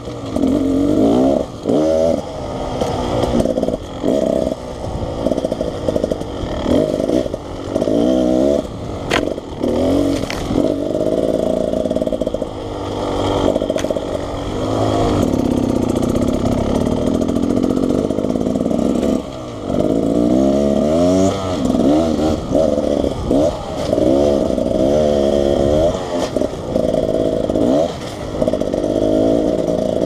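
A 2019 Beta Xtrainer two-stroke dirt bike engine being ridden on a trail, heard close up from the bike. The throttle is opened and shut over and over, so the engine pitch keeps climbing and falling with brief drops in loudness, and a sharp knock comes about nine seconds in.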